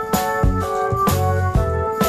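Background music: held keyboard chords over a stepping bass line and a steady beat of about two strikes a second.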